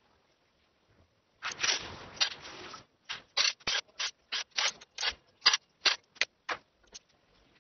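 Scraping or rubbing by hand: one continuous stroke lasting over a second, then about a dozen short, quick strokes, roughly three a second.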